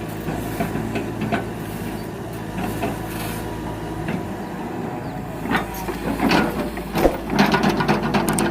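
Excavator's diesel engine running steadily, with knocks and clatter that grow busier in the second half, typical of logs being handled.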